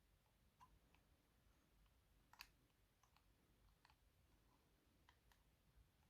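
Faint, irregular small metallic clicks from a disc-detainer pick turning the discs inside an Abus Granit X-Plus 54 lock core while searching for the gates, with one sharper click about two and a half seconds in.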